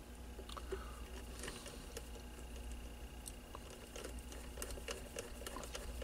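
Faint, scattered clicks and taps of fingers handling a small plastic radio case during reassembly, growing busier in the second half, over a faint steady hum.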